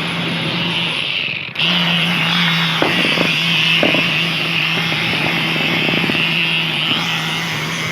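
Concrete poker vibrator test-running with a newly fitted needle: a steady buzz with a low hum, dropping out briefly about one and a half seconds in and then running on, with a few faint knocks near the middle.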